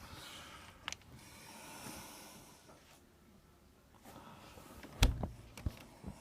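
Quiet indoor noise with a click about a second in and a heavier thump about five seconds in, followed by a couple of lighter knocks.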